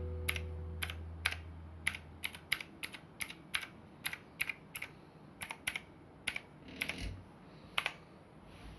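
Keys being pressed on a TeckNet mechanical keyboard with clicky blue switches: sharp, irregular key clicks, about three a second.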